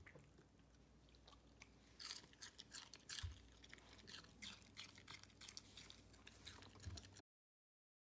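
A small dog chewing raw cabbage close to the microphone, with quick, irregular crisp crunches. The crunching starts about two seconds in and cuts off suddenly near the end.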